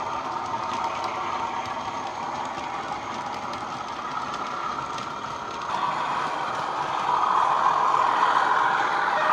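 Model Class 37 diesel's DCC sound decoder (Coastal 37/0 sound file on a LokSound 5) reproducing the English Electric engine's running sound through its small speakers, with light clicks from the model wagons' wheels on the track. The engine sound grows louder about six seconds in and again about seven seconds in.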